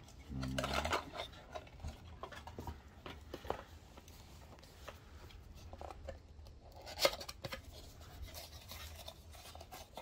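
Hands handling the drone kit's plastic packaging and spare propellers: scattered light scrapes, rubs and small clicks, with one sharper click about seven seconds in. A brief low hum of a man's voice near the start.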